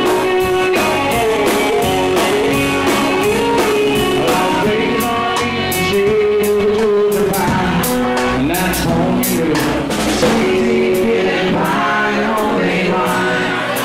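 Live country band playing through a PA: acoustic and electric guitars, bass guitar and a drum kit with evenly spaced cymbal strokes keeping time, and a man singing lead.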